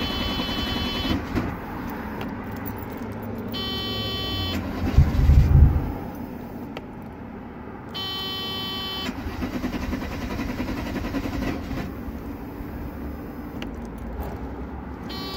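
Starter cranking the 1988 Mercedes 300CE's M103 straight-six, which does not catch, a no-start the owner is chasing through the ignition parts. An electronic warning tone sounds on and off over the cranking, and there is one louder low burst about five seconds in.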